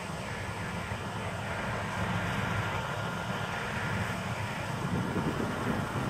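Claas Lexion 770 combine harvester running steadily while harvesting and unloading grain, with the tractor beside it: a continuous low mechanical drone that grows a little louder about two seconds in.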